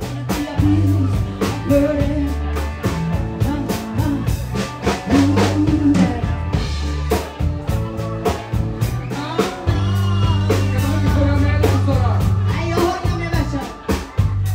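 Live blues-rock band playing: a steady drum-kit beat over bass, with singing.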